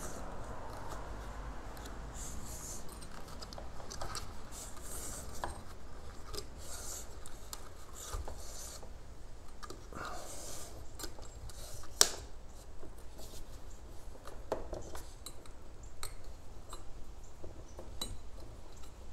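Scraping, rubbing and light clicking of a plastic LED garage light being handled and screwed into a socket adapter on a garage door opener, with one sharp click about twelve seconds in.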